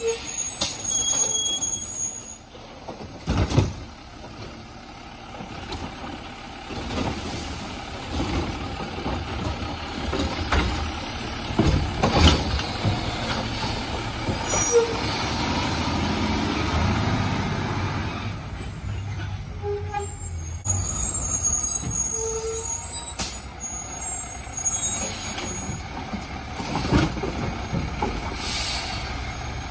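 Automated side-loader garbage truck's diesel engine running as it pulls up and stops at the curbside carts, with sharp air-brake hisses three times: a few seconds in, about twelve seconds in, and near the end. In the middle a high whine rises and falls over a few seconds.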